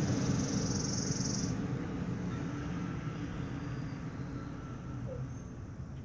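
Low steady background noise, with a soft hiss for the first second and a half that stops abruptly.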